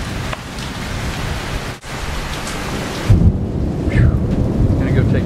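Heavy rain falling steadily, with thunder rumbling in from about three seconds in. A few short, falling bird chirps sound over it near the end.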